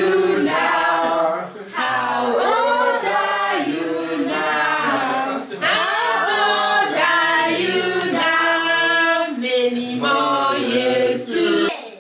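A group of people singing a birthday song together without accompaniment, in phrases with a couple of brief breaks.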